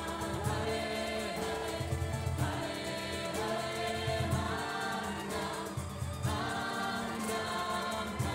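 Music: a group of voices singing together in long held phrases over instrumental accompaniment, in the style of group mantra chanting.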